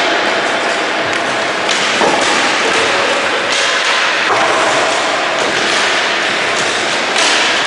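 Roller hockey rink din: quad skate wheels rolling on the hard floor, with hard balls struck by sticks and thudding against the boards.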